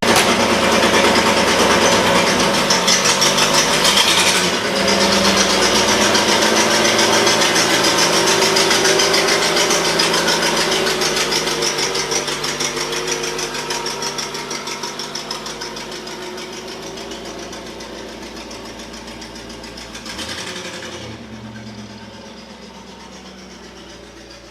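Cadillac engine running after a hard start on starting fluid, the car being moved out of the garage; the sound grows steadily fainter, with a brief swell about twenty seconds in, after which the high hiss drops away.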